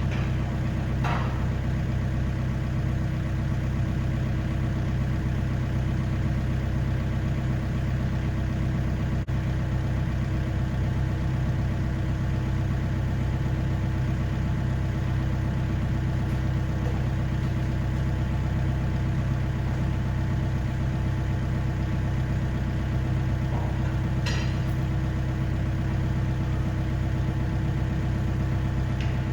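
Komatsu PC50 mini excavator's diesel engine idling steadily.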